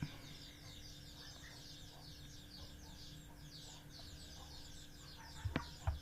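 Faint, rapid, high chirping of birds in the background, with a sharp click about five and a half seconds in.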